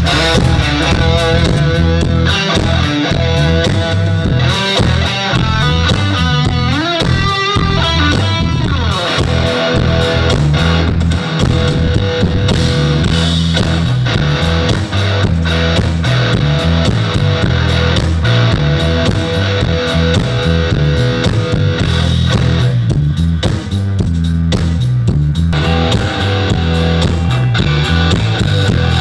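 Live rock band playing loudly through a PA: electric guitar over bass guitar and drum kit. The guitar bends and slides its notes about a quarter of the way in.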